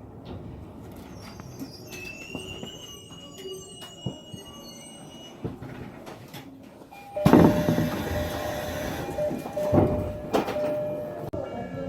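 Train noise at a station: a low rumble, then about seven seconds in a loud rush of train noise begins suddenly, with a steady hum running under it for about four seconds before it fades.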